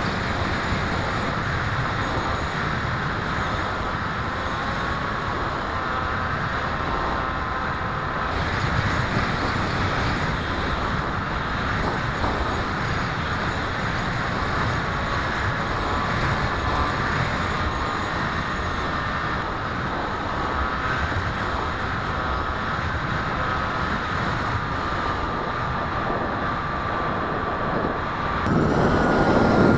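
Electric motor and propeller of a small RC FPV plane, heard from its onboard keychain camera, with wind rushing over the microphone: a steady noisy wash with a faint whine that drifts in pitch as the throttle changes. Near the end it jumps louder with a higher, steadier whine.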